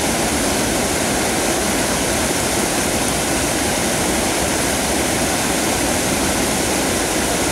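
River water pouring over a low concrete weir and churning in the white water below it: a steady rushing sound.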